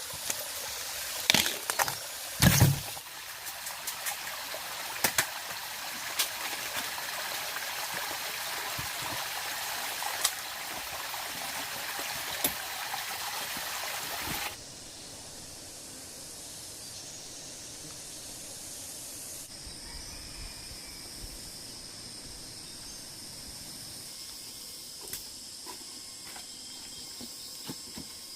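A steady rushing, water-like hiss with a few sharp knocks, the loudest about two seconds in, which cuts off abruptly about halfway through. After that, insects drone at a steady high pitch over a quiet background.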